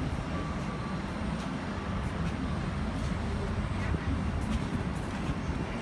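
Steady low rumble of a moving vehicle, with faint scattered clicks.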